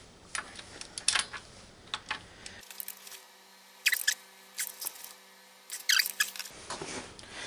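Long ratchet-head torque wrench working an oil pump mounting bolt on an engine block: irregular sharp metal clicks and clacks, single ones at first, then small clusters about four and six seconds in.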